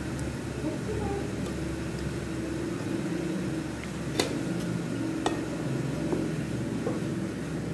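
Hands turning marinated pork belly slices in a metal basin, with a few sharp clicks against the metal, the loudest about four seconds in, over a steady low hum.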